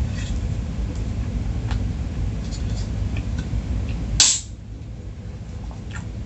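Faint clicks of fingernails picking at a soda can's pull tab over a steady low hum. About four seconds in comes one sudden, loud rising swish, and the hum drops away after it.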